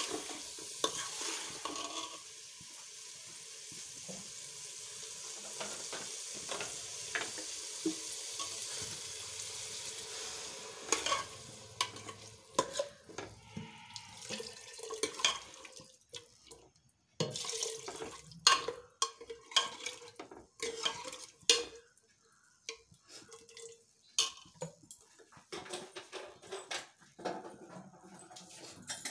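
Potatoes and peas sizzling as they fry in an aluminium pressure cooker while a metal ladle stirs them. About ten seconds in the sizzle fades and the ladle knocks and scrapes against the pot in separate strokes.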